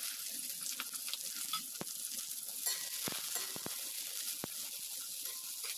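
Sliced onions frying in hot mustard oil with cumin in a metal kadhai, a steady sizzle, while a metal spoon stirs them and knocks against the pan several times.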